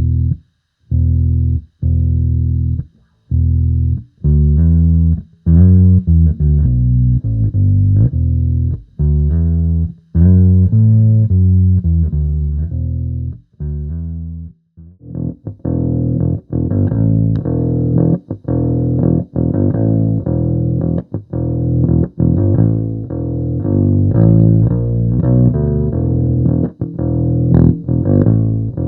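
Electric bass played through a Sonicake B Factory bass preamp on its overdrive channel: first separate held notes and short phrases with gaps between them, then, from about fifteen seconds in, a fast continuous riff picked with a pick.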